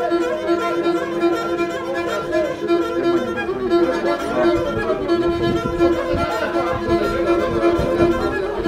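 Bowed pear-shaped folk fiddle, held upright and played solo: a busy, wavering melody over a steady drone note that breaks only briefly at bow changes.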